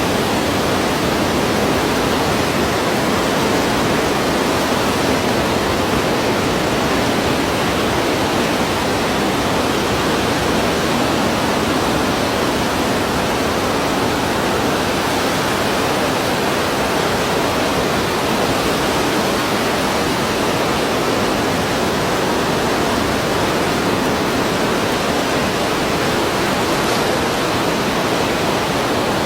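Continuous rushing wash of ocean surf, an even level of noise throughout with no single waves standing out as they break.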